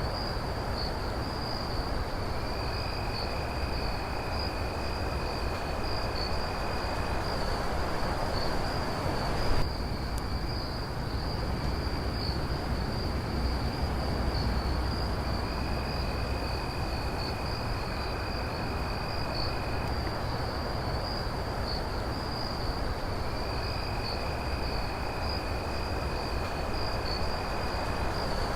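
Crickets trilling in a steady, unbroken night chorus, with a second, lower-pitched insect trill joining for stretches of four to five seconds at a time, over a low background rumble. A single brief knock about ten seconds in.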